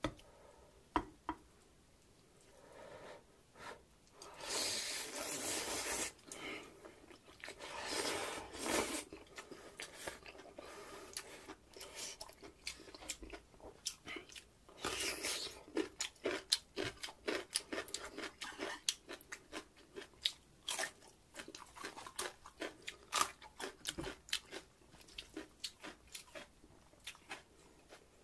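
A person slurping glass noodles from a spicy pork-bone soup in long noisy draws, about five seconds in and again near eight seconds, then chewing with many quick wet smacks and crunching on cubes of radish kimchi (kkakdugi).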